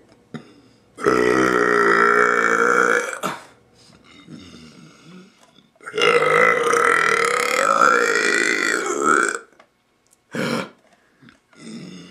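A young man burping loudly and at length: one long burp of about two seconds, then an even longer one of over three seconds with a wavering pitch, and a short burp near the end.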